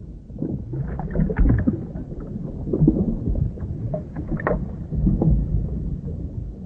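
Underwater ambience: a low, muffled rumble of moving water with many small irregular clicks and knocks.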